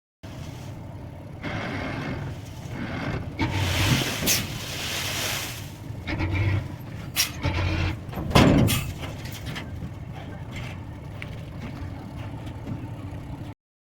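Dump truck running while it tips its load of sand, a rumbling noise with hissing swells and a few sharp knocks about halfway through; it cuts off abruptly near the end.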